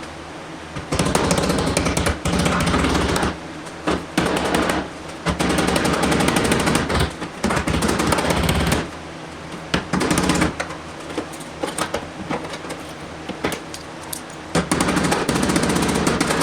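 MIG welder laying short beads on sheet-metal body panel, crackling in bursts of one to three seconds with short pauses between.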